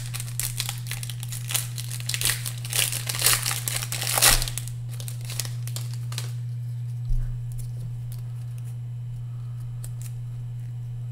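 A foil baseball-card pack (1994 Donruss) being torn open, its wrapper crinkling and tearing for about the first four seconds. Then it goes quiet apart from a steady low hum, with one soft thump about seven seconds in.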